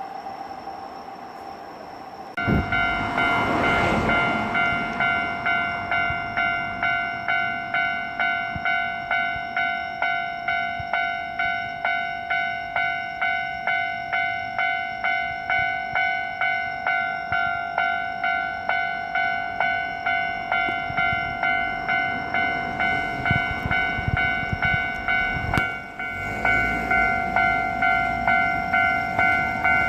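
Japanese level-crossing warning bell starts suddenly about two seconds in and rings in a steady rhythm, about two strikes a second, cutting out briefly near the end and starting again. Under it, a Hankyu Takarazuka Line train runs past on the tracks.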